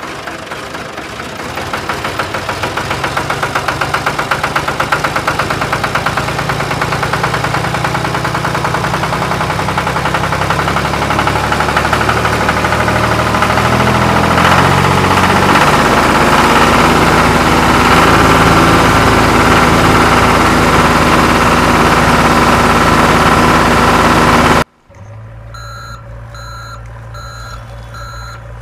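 Tractor engine running, growing louder over the first several seconds. Near the end it cuts off abruptly and a vehicle's reversing alarm beeps steadily over a low engine hum.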